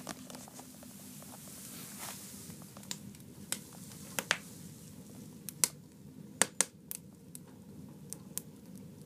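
Wood fire crackling inside a wood stove: scattered sharp snaps and pops at irregular intervals, with a cluster of louder ones just past the middle, over a low steady background.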